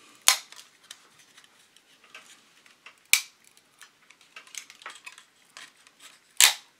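Glued clear styrene rear window of a vintage Jo-Han 1/25 Javelin model car body cracking loose under thumb pressure: three sharp plastic snaps, one near the start, one around three seconds in and the loudest near the end, with faint crinkling of plastic between.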